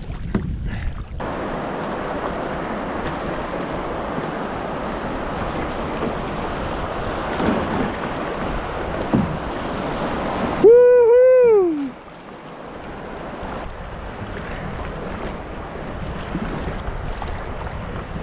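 Rushing, splashing water as a kayak runs a small riffle of rapids. About ten seconds in, a loud two-note whoop, like a 'woo-hoo', from the paddler rises and then falls away, after which the water continues more quietly.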